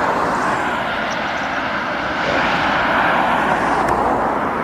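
Large delivery lorry driving past, a rush of engine and tyre noise that swells to its loudest about three seconds in, then eases.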